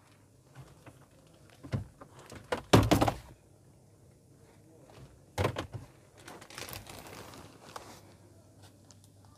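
Plastic glovebox lid on a Toyota Innova Crysta's dashboard opened and shut: a few hollow plastic clunks, the loudest cluster about three seconds in and another about five and a half seconds in, followed by a soft rustle.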